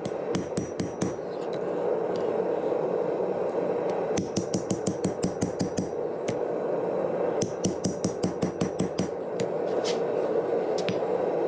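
Hand hammer striking hot 5160 leaf-spring steel on an anvil while forging a knife blade, with ringing metallic blows. The blows come in three quick runs of about five or six a second, with a few single blows near the end, over a steady rushing noise.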